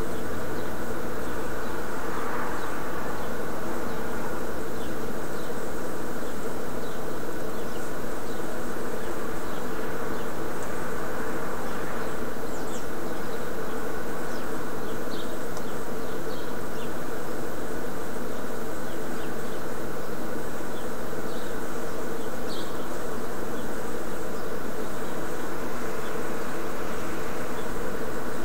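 A steady, loud buzzing hum that holds an even level throughout, with faint short high chirps scattered through it.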